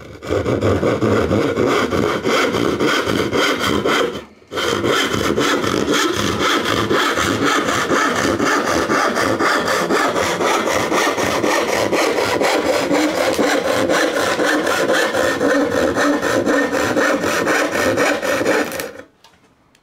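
Freshly sharpened Spear and Jackson crosscut hand saw cutting through a pine board in steady strokes. It pauses briefly about four seconds in and stops about a second before the end.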